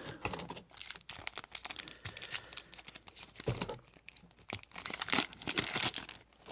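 Crinkling and tearing of a foil trading-card pack wrapper being opened and handled, with quick light rustles and clicks of the cards. The handling gets louder for a moment about halfway through and again near the end.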